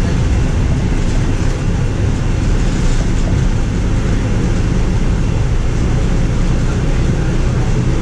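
Interior noise of a moving transit bus: a steady, loud low rumble of engine and road noise heard from inside the cabin.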